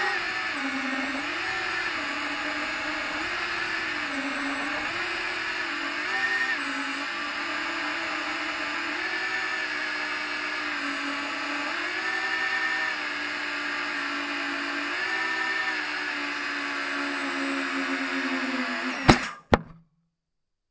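FPV quadcopter's electric motors and propellers whining, the pitch rising and falling as the throttle changes in low flight. Near the end come two sharp knocks as the quad comes down in the grass, and then the sound cuts off.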